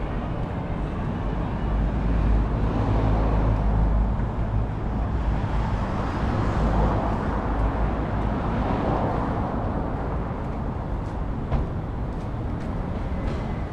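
Road traffic on a busy city street: steady engine and tyre noise, with a deep rumble in the first few seconds and another vehicle passing about halfway through. There is one short sharp knock near the end.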